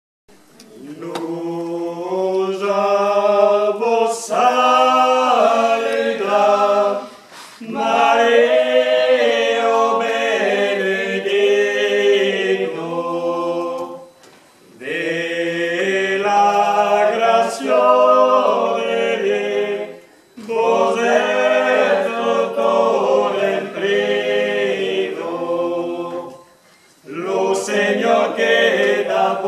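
A small mixed group of four voices, women's and men's, singing a cappella in harmony, an Occitan (Gascon) song. The song comes in four phrases of about six seconds each, with short breath pauses between them.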